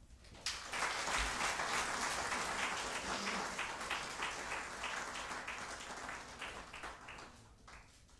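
Audience applauding, starting about half a second in and gradually dying away near the end.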